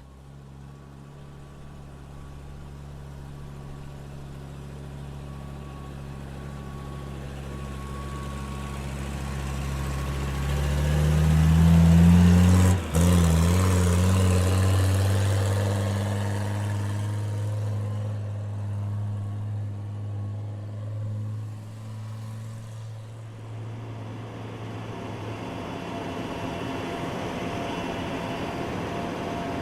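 Heavy construction vehicle engine drawing near and growing louder, its pitch rising as it revs up about twelve seconds in, with a brief drop-out at the peak. It then slowly fades away, leaving a quieter steady rumble.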